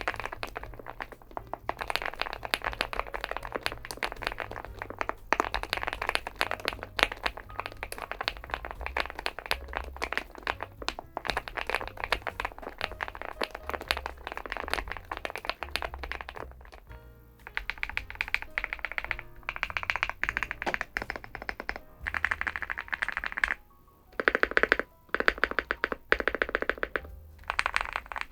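Fast typing on a Weikav Stars80 aluminium gasket-mount mechanical keyboard, a dense run of deep 'kotokoto' thocky keystrokes that pauses briefly a couple of times, over background music.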